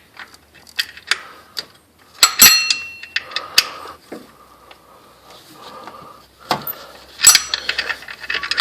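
Metal hand tools, a socket and ratchet, clinking and clanking while loosening the serpentine belt tensioner bolts. There are sharp metallic knocks that ring briefly, about two and a half seconds in and again about seven seconds in, with softer clicks and scraping between them.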